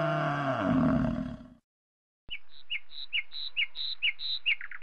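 A buffalo's low, drawn-out bellow that ends about a second and a half in. After a brief pause, a bird chirps in a quick run of short, high, falling notes, about three a second.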